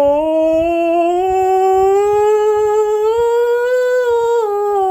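A man singing one long sustained vowel as a vocal exercise, the pitch sliding slowly upward and then dropping back down near the end. It demonstrates drawing the resonance out from above when going up to high notes.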